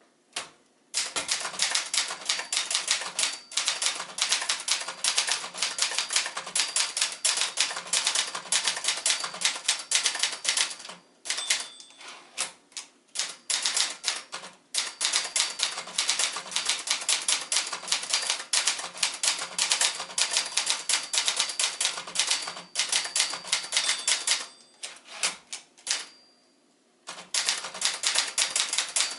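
1983 Brother Charger 11 manual portable typewriter, a JP-1 design, being typed on quickly: a dense, rapid run of key strikes, broken by a few short pauses and one pause of about two seconds near the end.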